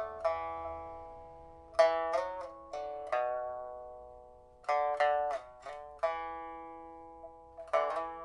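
Solo pipa: a 1985 Shen Huanchun pipa of Siamese rosewood, fitted with a new fire-baked soundboard and new frets, being test-played. Slow, sparse phrases of a few quick plucked notes, each group left ringing and fading before the next.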